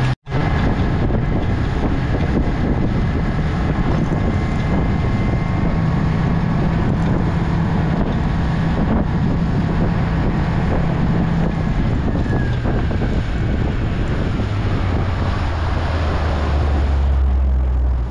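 A motorboat's engine running underway, with wind buffeting the microphone; the engine's hum shifts lower and stronger near the end.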